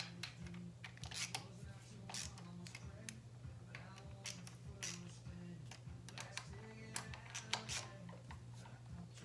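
Scattered, irregular light clicks and taps of hand tools and small parts being handled during engine assembly work, over a steady low hum.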